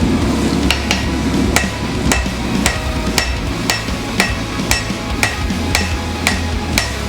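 Hammer blows on steel during blade forging, about two a second, each with a short metallic ring, starting about a second in. A steady low hum runs underneath.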